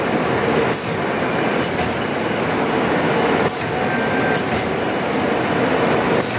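MGI JetVarnish 3D press with its iFoil unit running gold foil: a steady machine running noise, with five short hisses over it.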